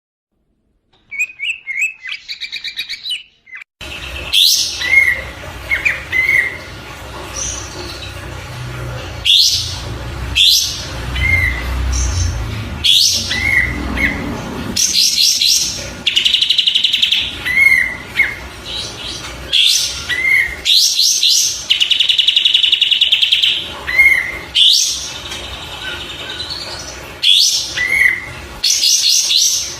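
Kapas tembak songbird singing repeated short rising whistles and chirps, with longer rattling trills twice around the middle, over a steady background hiss. The song starts about four seconds in, after a brief quieter opening.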